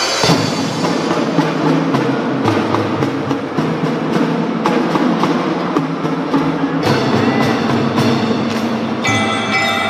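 Children's marching drum band playing a drum-heavy passage, with rapid snare, tenor and bass drum strokes. Near the end, bell-like keyboard tones come back in with the tune.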